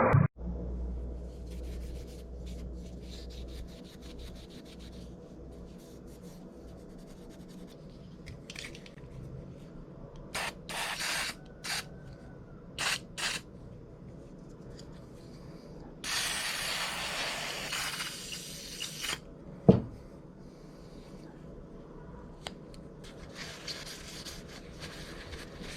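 Rubbing and scraping of hand-cleaning a small pocket knife, in irregular short strokes, with a hiss of about three seconds in the middle and one sharp click shortly after it.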